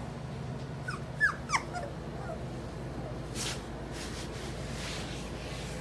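Four-week-old puppy giving three or four short, high squeaks about a second in, the last two the loudest.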